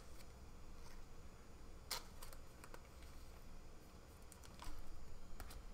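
Faint handling of glossy trading cards, with cards sliding and tapping against each other as they are flipped through by hand. A few sharp clicks stand out, the sharpest about two seconds in.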